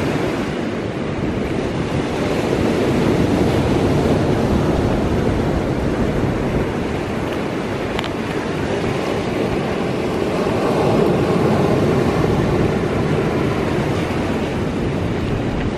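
Ocean surf washing against a rocky shore, with wind buffeting the microphone; the wash swells a few seconds in and again past the middle.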